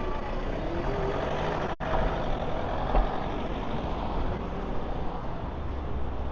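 City street traffic, with the engine of a heavy vehicle such as a truck or bus running close by. The sound cuts out for an instant just under two seconds in, and a low thump comes about a second later.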